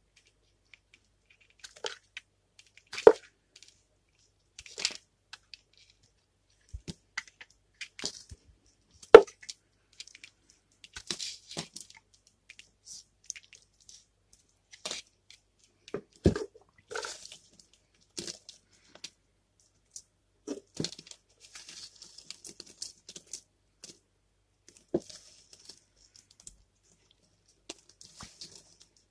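A knife blade shaving curls off a bar of dry white soap, heard as irregular crisp scrapes and crunches, with a few sharp loud cracks standing out. Near the end come softer, quicker crackles as the soap flakes are handled.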